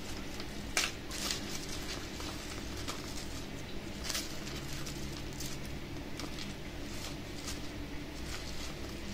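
Scattered light rustles and clicks, as of packets of dried herbal ingredients being handled, over a steady low hum.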